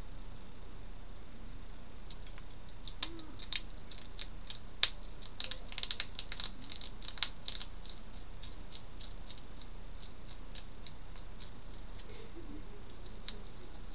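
A hedgehog eating at a food dish: a run of small sharp clicks and crunches of chewing, densest in the middle and thinning to a slower ticking, over a steady hiss.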